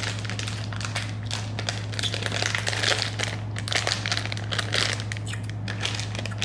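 A crinkly snack wrapper of Hershey's cookie bites being handled and torn open, partly with the teeth: dense, irregular crinkling and crackling, thickest in the middle.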